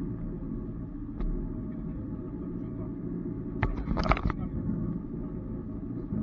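Off-road 4x4 vehicle engine running steadily, with a brief clatter of sharp knocks about four seconds in.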